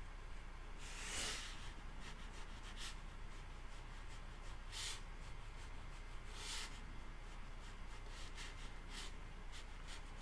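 A few faint, soft swishes of a paintbrush stroking watercolour paper, the strongest about a second in, over quiet room tone.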